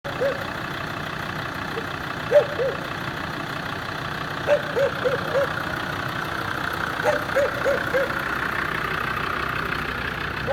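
An off-road SUV's engine running steadily at low revs, with short rising-and-falling chirps in runs of three or four, several times.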